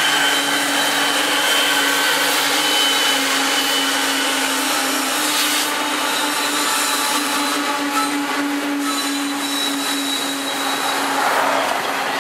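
Freight train passing close by, with diesel locomotives and then loaded flatcars rolling past: a steady rumble and rattle of wheels on rail with a steady high wheel squeal.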